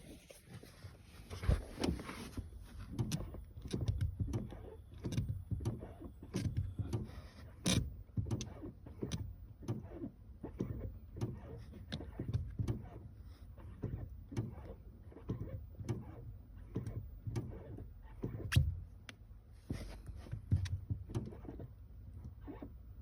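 Brake pedal of a Honda Civic hybrid being pressed and released over and over, giving a run of short clicks and low thuds about one to two times a second: the abnormal pedal noise being demonstrated.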